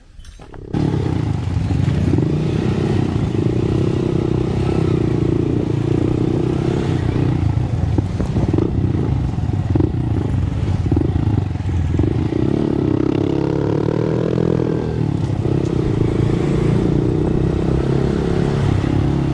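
Motorcycle engine running under way, starting abruptly about a second in, with the engine note rising and falling briefly near the middle.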